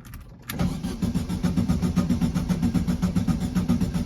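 Volkswagen Beetle's air-cooled flat-four being cranked over by the starter, starting about half a second in with an even chugging of about six beats a second. It doesn't catch or speed up, because there is no spark; the owner thinks the distributor is bad.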